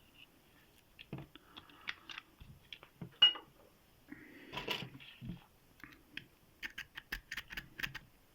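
Small metal clicks and scratches as a lock pick and oil are worked into a cast-iron Tri-Circle padlock's keyway, with one sharp click about three seconds in; near the end a rake scrubs quickly in and out over the pins, about five clicks a second, working the oil into the pin stacks.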